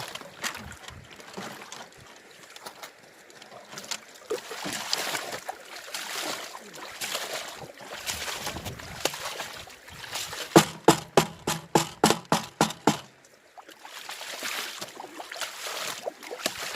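Water sloshing and gravel scraping in the shallows of a river as a gold pan is worked. About two-thirds of the way through, a quick run of about a dozen pitched pulses, roughly five a second, stands out for a couple of seconds and then stops.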